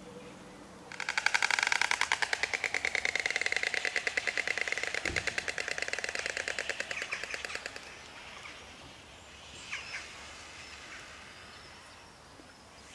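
White stork clattering its bill: a loud, rapid, machine-gun-like rattle of many strokes a second, starting about a second in and fading out some seven seconds later.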